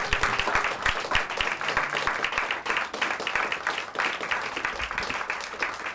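Audience applauding, many hands clapping densely and unevenly.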